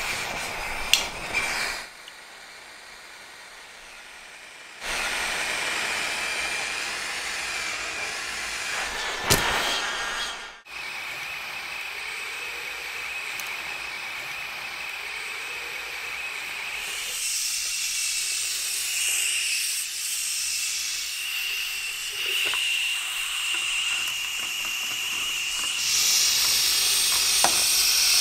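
Gas torch flame hissing steadily as it heats the thin tin-plate hull of a toy submarine, with a few sharp metallic clicks. The hiss drops off for a few seconds near the start, cuts out briefly before the middle, and grows louder near the end.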